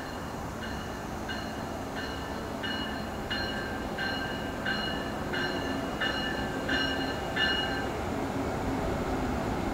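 SEPTA ACS-64 electric locomotive's bell ringing steadily, about three strokes every two seconds, growing louder as the train approaches and stopping about eight seconds in, over the rumble of the train rolling in.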